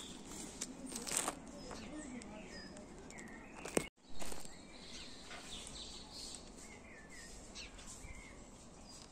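Small birds chirping with short, scattered calls over steady outdoor background noise. A couple of knocks come about a second in and just before four seconds in, where the sound briefly cuts out.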